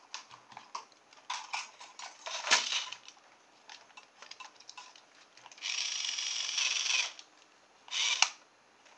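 Small electric drive motor of a toy RC car whirring as it spins the wheels, once for about a second and a half and again briefly about a second later, among clicks and handling of the plastic chassis. The car is powered through corroded battery contacts.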